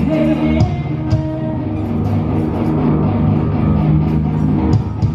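Loud rock music with strummed electric guitar and bass guitar, and a few sharp drum hits.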